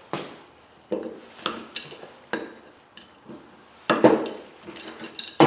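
Small metal parts and hand tools clinking and knocking against each other as brass wire connectors and screws are taken off an electric motor's wiring. The clinks come irregularly, about eight or nine of them, with the loudest about four seconds in and near the end.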